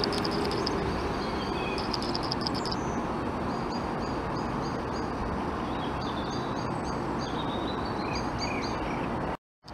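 Small birds chirping in quick, repeated short notes over a steady background rush. The sound cuts out abruptly near the end.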